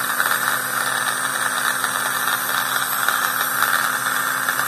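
Small electric motor and plastic gears of a Thomas & Friends toy train whirring steadily, running on a rechargeable phone battery in place of its two AA cells.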